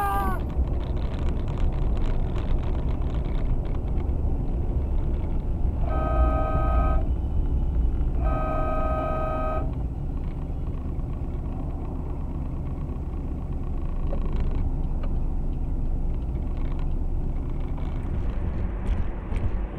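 Steady low rumble of a vehicle driving on the road, with a car horn sounded twice, about six and eight seconds in, each blast a second or so long.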